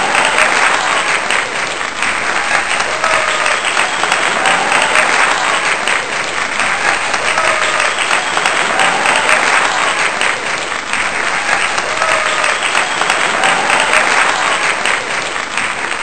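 Crowd applauding steadily, a dense patter of many hands clapping, with the same faint cheering pattern coming back about every two seconds.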